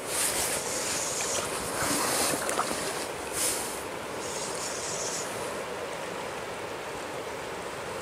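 Fast river current rushing steadily past the bank, with a few short splashes at the surface near the landing net about a second in, around two seconds and near the middle.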